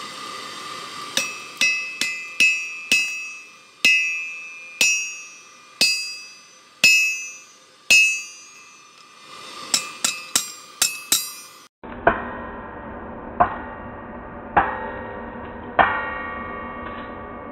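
Hand hammer striking hot leaf-spring steel on a steel anvil, each blow ringing. The blows come in uneven runs: a quick few, then about one a second, then a fast flurry. After a cut about 12 seconds in, four more blows, spaced further apart and more muffled.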